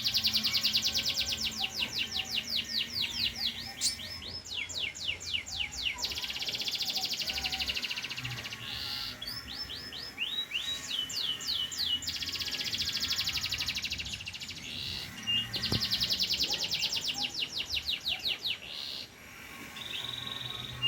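Domestic canary in full song, a pied 'panda' canary: long rolls of rapid, evenly repeated high notes, several seconds each, alternating with shorter chirped phrases and brief pauses.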